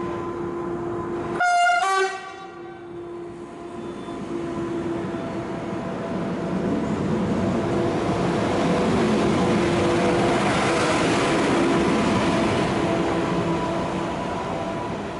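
Newag Impuls2 36WEd electric multiple unit gives a short two-tone horn toot about a second and a half in, then rolls past close by. Its running noise builds to a peak and eases off near the end.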